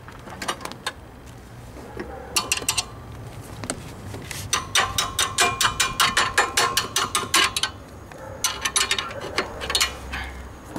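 Ratchet wrench clicking in quick runs, about five clicks a second, as the new alternator's mounting bolts are tightened; the longest run comes in the middle, with shorter runs before and after.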